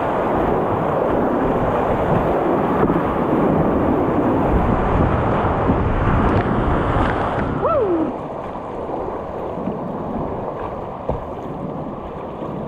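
Rushing whitewater of a river rapid, a loud steady roar of water with wind buffeting the microphone. About two-thirds through, a short high call slides downward in pitch, and the water noise then drops noticeably.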